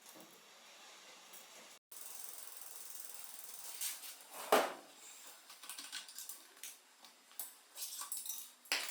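Small metal parts of a mountain bike's headset bearing clicking and knocking as they are handled and taken apart. The sharp clicks are scattered, with one louder knock about halfway through, and they come more often near the end over a light steady hiss.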